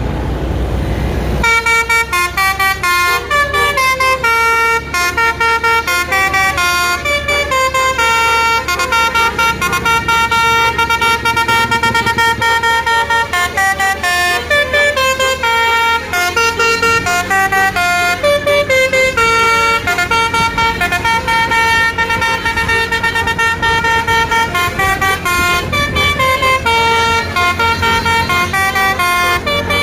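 A bus's multi-tone telolet horn playing a fast melody of short notes stepping up and down, starting about a second and a half in, with the bus engine running underneath.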